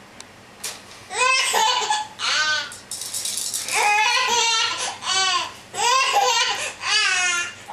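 A 20-week-old baby girl laughing: about six bursts of high-pitched laughter, starting about a second in.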